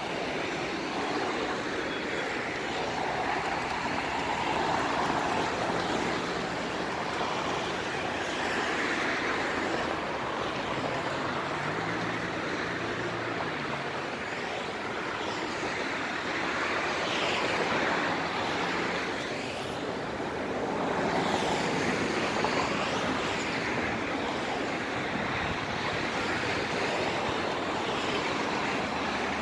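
Steady street traffic noise, with cars passing now and then and the sound swelling and fading as they go by.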